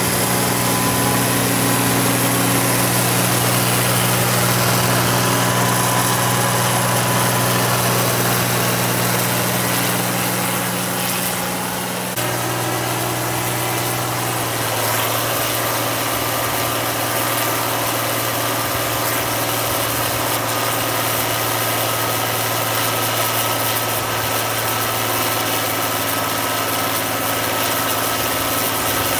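Turbocharged John Deere 4230 six-cylinder 404 cubic inch diesel with an M&W turbo kit, running steadily on a PTO dynamometer during a horsepower test run. About twelve seconds in the engine note drops slightly, and a few seconds later a thin high whine joins it and holds.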